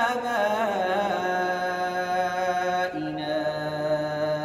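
A man's solo voice chanting the Quran in melodic tajweed style, drawing out a long vowel: a wavering, ornamented note in the first second settles into a steady held tone, then steps down in pitch about three seconds in as the next word begins.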